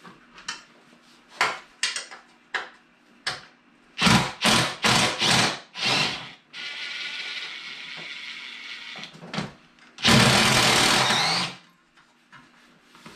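Cordless drill-driver with an 11 mm socket running bolts out of a snowmobile's rear bumper: a few short bursts about four seconds in, a quieter steady run, then a loud burst of about a second and a half near the end, with light clicks of the socket and parts in between.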